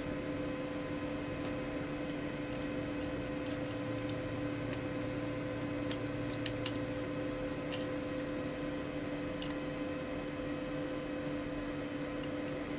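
Scattered light clicks and taps of small screws and plastic laptop parts being handled, the sharpest about six and a half seconds in, over a steady hum.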